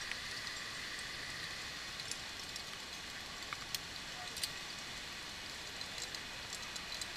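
Steady even hiss of wet rainforest ambience, with a few light clicks scattered through it.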